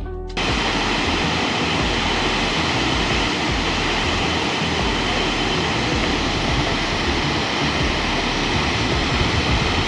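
Waterfall roaring steadily, a dense, even rush of falling water that cuts in just after the start.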